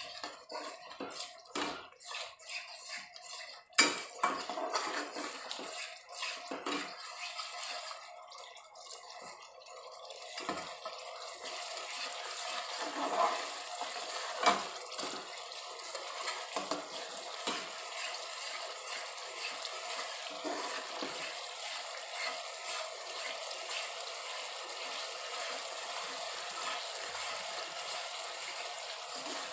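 Perforated steel skimmer scraping and clinking against a steel kadhai as a spiced curd masala is stirred nonstop to keep the curd from splitting. Dense scrapes and knocks come first, with one sharp clang about four seconds in, then a steady hiss with lighter scrapes.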